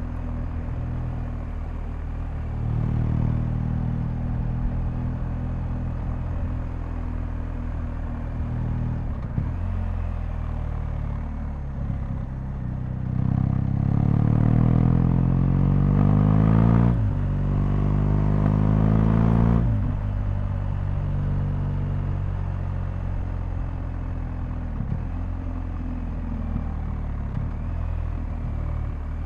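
BMW R1250GS boxer-twin engine running under way, heard raw. About halfway through the note climbs under acceleration, drops sharply with a gear change, climbs again, then settles back to a steady lower note.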